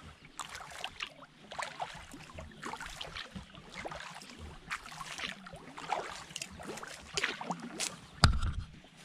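Kayak paddle strokes in calm river water: irregular splashes and drips from the blades. There is one sharp knock near the end.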